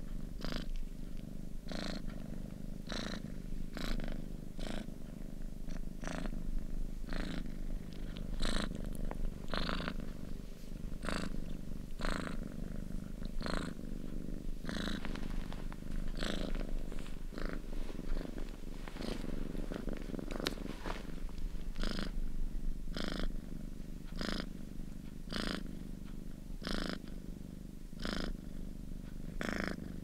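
Domestic cat purring steadily: a continuous low rumble with a breathy pulse on each breath, roughly once every three quarters of a second.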